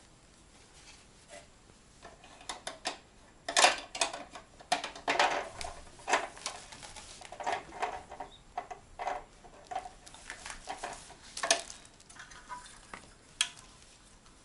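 Irregular clattering and clinking of small hard objects being handled, a quick run of sharp knocks of varying loudness, the loudest about three and a half seconds in and again near eleven and a half seconds.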